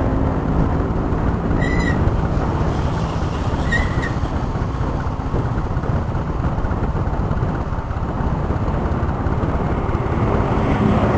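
Steady rushing wind noise on the microphone mixed with a scooter engine running at road speed. Two short high chirps come about two and four seconds in.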